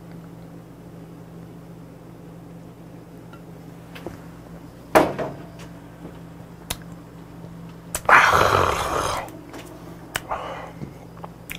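A steady low hum with a few light clicks and a sharp knock about five seconds in, then a loud, rasping breath about eight seconds in that lasts about a second and fades: a man's throaty exhale after a gulp of somaek.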